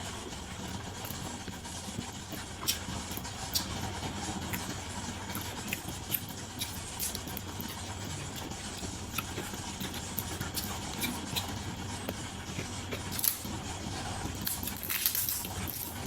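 Someone eating, with scattered small clicks and crunches over a steady background hum.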